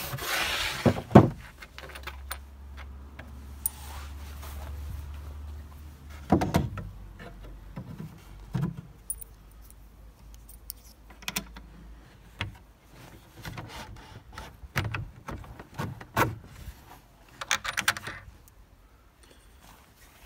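Small metal hardware clinking: bolts, washers and nuts being handled and fitted by hand to a wooden folding chair, with scattered clicks and knocks.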